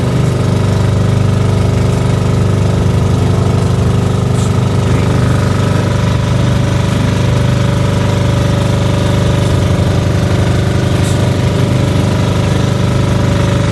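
Motorized outrigger boat's engine running steadily under way, loud, with a fast, even beat.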